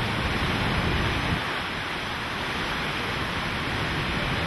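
Hurricane-force wind and driving rain, a steady rushing noise, with wind buffeting the microphone. The low rumble of the buffeting drops off about a second and a half in.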